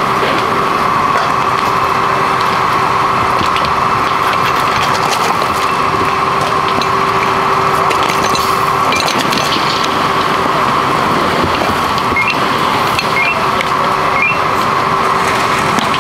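Static caravan fire crackling and snapping as its wooden frame burns, over a steady loud mechanical drone with a constant hum, as of fire engines running.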